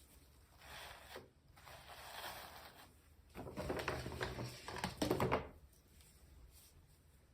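Hands unwrapping and handling toy packaging: rustling and scraping with light clicks in three bouts, the loudest from about three to five and a half seconds in, then it goes quiet.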